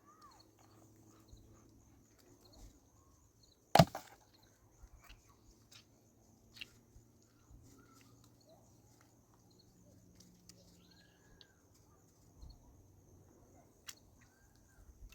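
One loud sharp knock about four seconds in, with a few fainter clicks and knocks after it and faint chirps of birds in the background.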